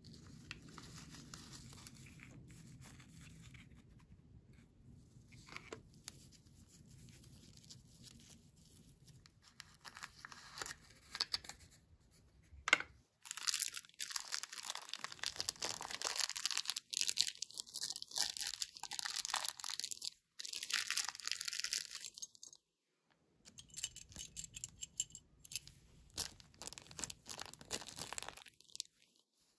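Thin clear plastic toy bag crinkling and crackling as it is handled and squeezed, in loud irregular bursts through the second half, after a quieter stretch of faint handling noise and small clicks.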